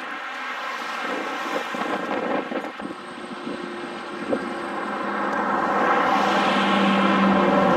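A motor engine humming steadily, growing louder from about five seconds in as it draws nearer.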